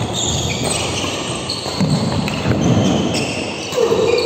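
Live sound of a badminton doubles rally: a racket striking the shuttlecock at the start, then the players' shoes squeaking in short high chirps on the court floor amid footsteps and thuds.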